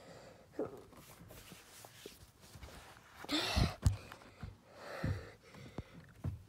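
Faint handling sounds in a car cabin: scattered soft knocks and clicks as the phone is moved about, with a short breathy gasp about three and a half seconds in.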